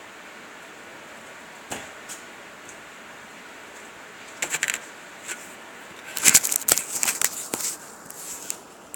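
Handling noise from a phone camera as it is picked up: a few scattered clicks, then a loud cluster of knocks and scrapes against the microphone about six to seven and a half seconds in.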